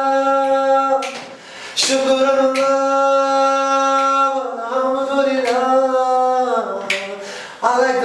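A man singing unaccompanied, with no instrument: long held notes, a breath about a second in, then a phrase that moves and falls in pitch near the end before another breath.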